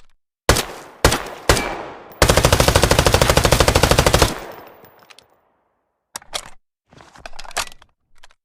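T85 submachine gun: three single shots about half a second apart, then a rapid full-auto burst of about two seconds that dies away in an echoing tail. Near the end come a few short bursts of mechanical clicking from the gun.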